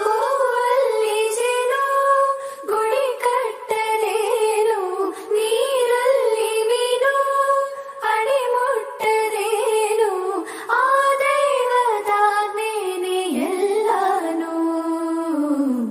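Devotional music: a single high melody line, sung or played, gliding between long held notes in an Indian devotional style.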